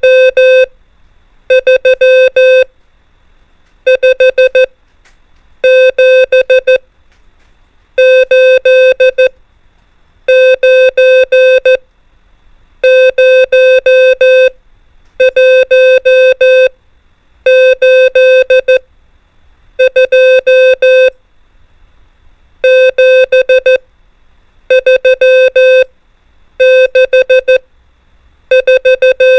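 Morse code (CW) practice tone sending numbers: a single steady-pitched beep keyed into groups of dits and dahs, one number per group. A new group starts about every two seconds, with short silent gaps between them.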